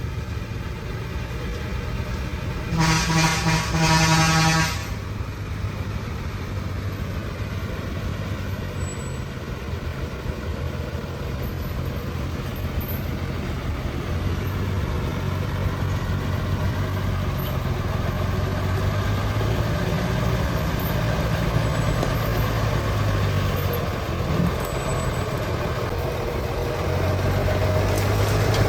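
Diesel truck engine running steadily, with a horn sounding in two blasts close together about three seconds in; the engine grows louder through the second half.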